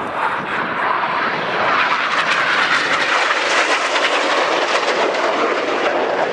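BAE Hawk T1 jets flying past low, their Adour turbofan engines making a steady jet rush that grows louder about two seconds in.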